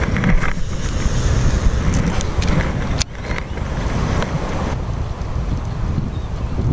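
Wind buffeting an action camera's microphone, a steady low rumble, with a few brief clicks from handling the fishing rod and baitcasting reel.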